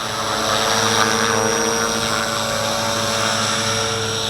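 Walkera V450D01 collective-pitch RC helicopter hovering just off the ground, its electric motor and rotor giving a steady whine with a low rotor hum beneath.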